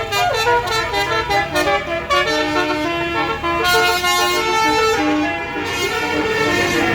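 Bus 'basuri' telolet musical horn playing a fast tune of short notes stepping up and down, several horn tones sounding at once, over a low rumble from the bus.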